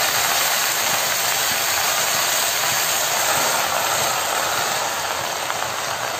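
Gongura (sorrel) leaves sizzling in hot oil in a pan as they begin to fry and wilt: a steady hiss that slowly grows quieter.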